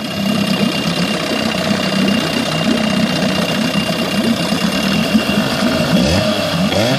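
1986 Evinrude 6 hp two-stroke outboard motor running at idle with a rapid, even putter. Its pitch rises briefly near the end.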